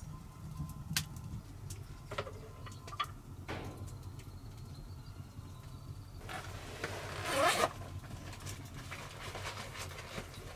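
A backpack zipper is pulled open with a rasping sound that lasts about a second and a half, a little past the middle. Scattered small clicks and knocks come from gear being handled.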